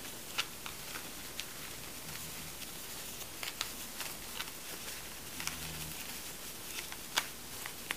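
Disposable diapers rustling and crinkling in short scattered bursts as hands press and shift them into a rolled ring.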